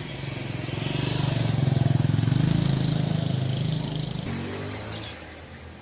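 A motor vehicle's engine running as it passes, growing louder for about two seconds and then fading away.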